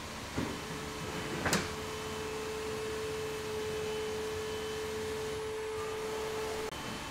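Scissor car lift's motor running with a steady hum as it raises the car, starting with a click and a knock, and cutting off suddenly near the end.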